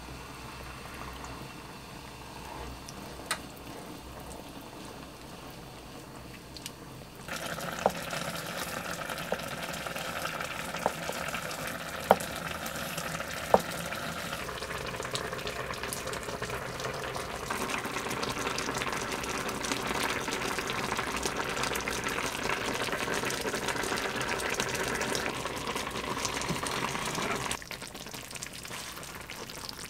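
Cooking sounds: a pot of broth simmering and bubbling with a steady hiss, with a few sharp knife taps on a wooden cutting board a few seconds in.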